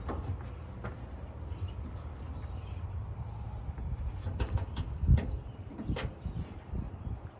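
Scattered metal clicks and knocks of a wrench working on the tailgate lock's bolts, over a steady low rumble.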